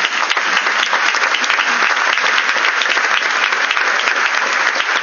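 Audience applauding: a dense, steady clapping of many hands, loud and unbroken throughout.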